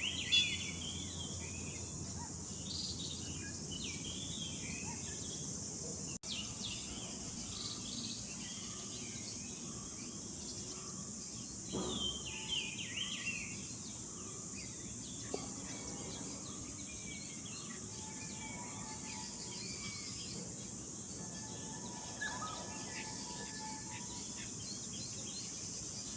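Forest ambience: many birds chirping and calling, busiest in the first half, over a steady high insect drone.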